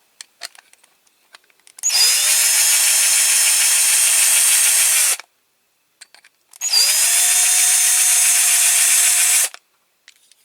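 Electric drill running twice for about three seconds each time: the motor spins up with a quick rising whine, then holds a steady pitch while the bit drills out the rivets of a die-cast toy lorry.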